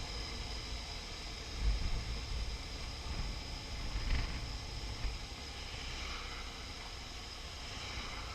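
Wind buffeting the microphone in low gusts over the steady running of a BMW R1150RT's boxer-twin engine while riding, with bigger gusts about two seconds and four seconds in.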